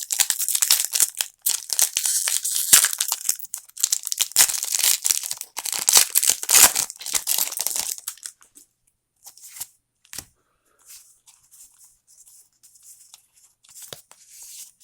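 Foil booster-pack wrapper being torn open and crinkled for about eight seconds, then only faint, scattered rustles and clicks as the cards are handled.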